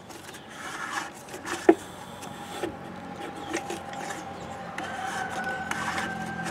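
Small two-stroke engine of an Echo PB-265L backpack blower being turned over slowly by hand: a few light clicks and rubs, the sharpest about a second and a half in, over a steady faint hum. The engine turns over very easily, which the owner puts down to a worn-out piston ring letting fuel past.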